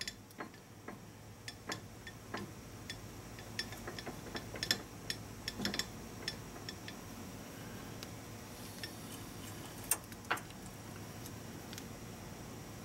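Irregular small metal clicks and ticks from hand-cranking the slides of a manual lathe, thickest in the first half and with two louder ones about ten seconds in, over a steady low hum.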